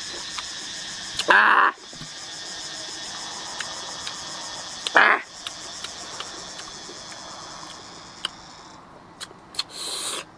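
Steady high-pitched drone of insects with small clicks of chewing throughout. Two short loud bursts come about a second and five seconds in, and a brief hiss comes near the end.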